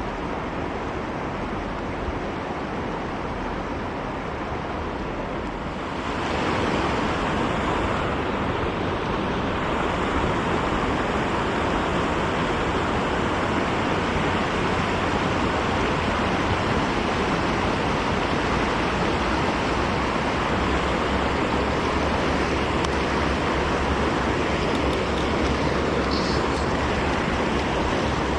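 River current rushing steadily, growing louder about six seconds in.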